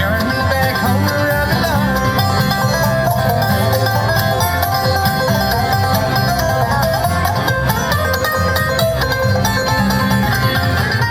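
Bluegrass-style music with banjo and guitar playing at a steady tempo.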